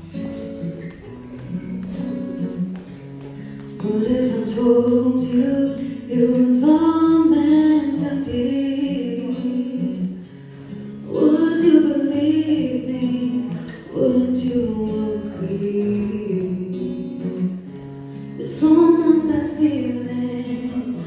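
A slow song on acoustic guitar with a woman singing. The guitar plays alone at first, and the voice comes in about four seconds in.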